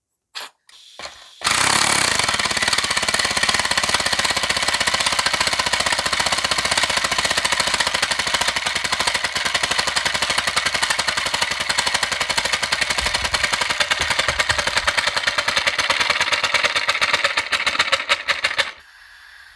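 3D-printed compressed-air engine running on 60 psi air: a fast, steady chatter of hissing exhaust puffs from its valve. It starts about a second and a half in after a few handling clicks and cuts off suddenly near the end. It runs slower than expected, which the builder puts down to the rear bearing being pushed out the back.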